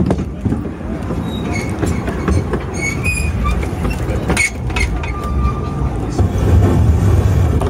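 Narrow-gauge railway carriage rolling over the track: a steady low rumble with clicks from the rail joints and points, and brief high wheel squeals, one about three seconds in and a longer one about five seconds in.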